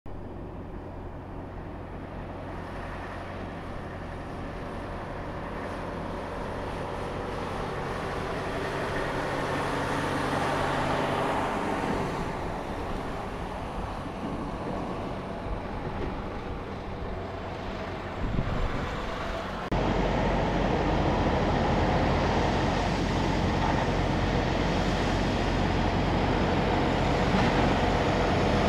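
Freightliner Cascadia semi trucks driving slowly past one after another, their diesel engines running with a low steady drone that grows louder as a truck comes closer. About two-thirds of the way through the sound jumps suddenly louder and stays loud.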